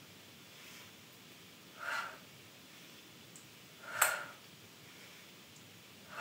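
A woman's sharp exhales, about every two seconds, breathing out on the effort of each side-crunch rep. The one near the middle is the sharpest and loudest.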